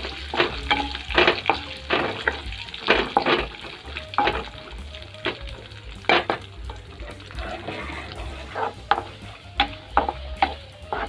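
A flat spatula scraping and knocking against a metal kadai in irregular strokes as cashews, coconut pieces and raisins are stirred while they fry in ghee, with a steady sizzle underneath.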